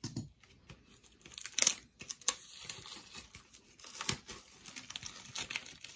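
Plastic wrapping on a pack of comic books being torn open and crinkled: uneven rustling and crackling, with a sharper rip about a second and a half in.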